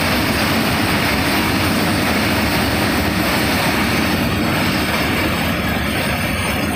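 Open-top freight wagons of an Indian Railways goods train rolling past: a loud, steady rumble of steel wheels on the rails, easing slightly near the end.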